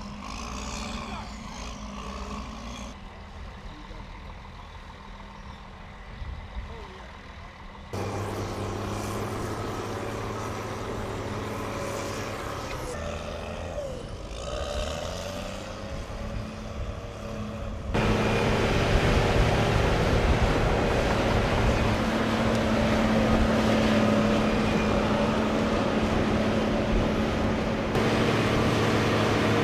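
Diesel engines of heavy military equipment running steadily, with a bulldozer in the last couple of seconds. The sound grows abruptly louder about 8 seconds in and again about 18 seconds in.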